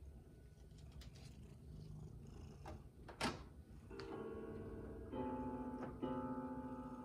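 A cat purring low, then a sharp knock about three seconds in. From about four seconds in, the cat's paws press keys on a Yamaha portable keyboard, sounding three clusters of notes about a second apart.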